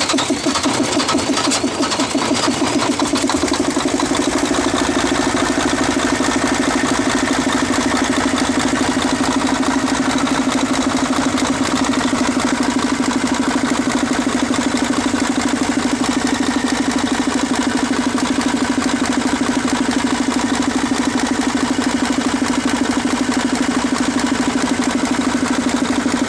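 Mercedes-Benz 1841 truck's diesel engine idling steadily just after starting, running on a newly replaced fuel line fitted to cure its hard starting.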